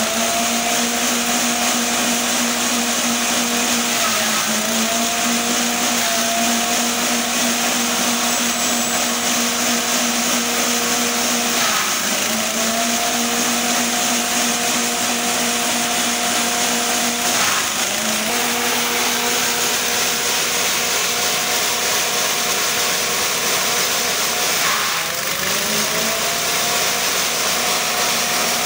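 Small petrol engine driving a grass chopper, running steadily at high speed with a constant humming whine from the spinning cutter. Four times the pitch dips briefly and picks straight back up, each time with a short knock.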